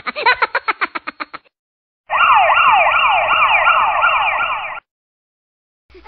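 Siren sound effect: an electronic wail whose pitch repeatedly sweeps up and drops back, about three times a second, lasting just under three seconds with abrupt edits before and after. A rapid run of short pulses leads into it at the start.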